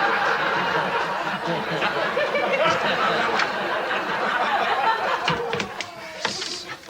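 Studio audience laughing: a long, loud wave of laughter that fades out about five or six seconds in, followed by a few short clicks near the end.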